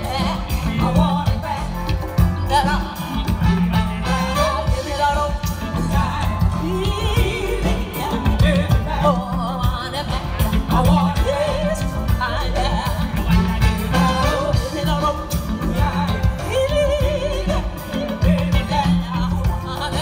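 Live band playing, with a woman singing lead over a strong, pulsing bass.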